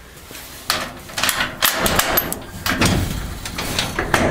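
Sectional garage door rolling up in its tracks, rattling and clattering, louder from about two seconds in.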